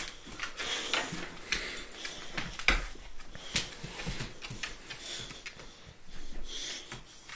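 A boxer dog moves about excitedly, breathing and sniffing noisily, with scuffling and a sharp knock a little under three seconds in.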